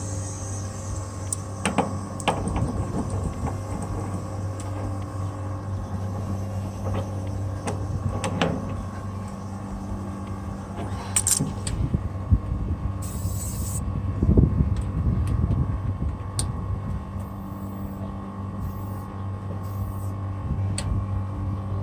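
Steady machine hum with occasional clicks and knocks of handling over it.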